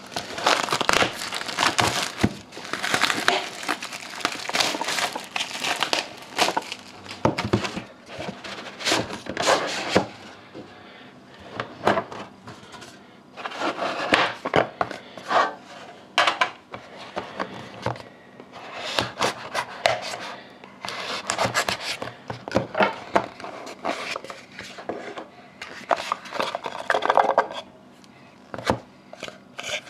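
A sealed 2011-12 Panini Dominion hockey-card box being opened by hand: its wrapping and packaging crinkle and tear in irregular bursts with short pauses.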